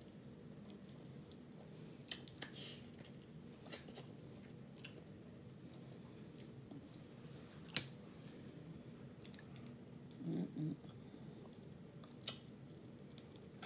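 A person chewing and smacking while eating saucy seafood, with a handful of sharp wet mouth clicks spread through and a brief low murmur about ten seconds in.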